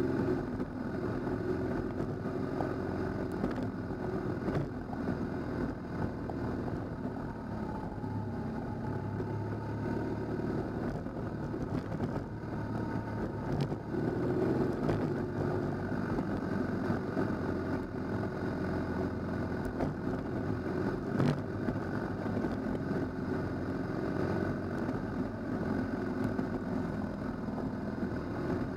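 Adventure motorcycle engine running steadily on a gravel track, picked up by a camera mounted on the bike, with a few sharp knocks.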